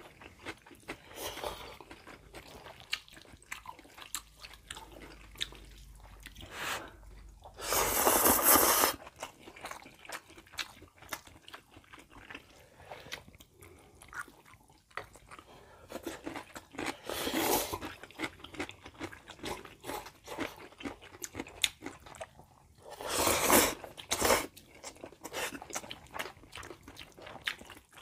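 Close-miked eating of Jjapaghetti black-bean instant noodles with chopsticks: continuous chewing and small wet smacks, broken three times by a loud noodle slurp of about a second each.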